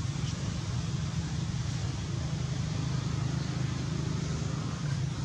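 Steady low background rumble with a faint hiss above it, unchanging throughout.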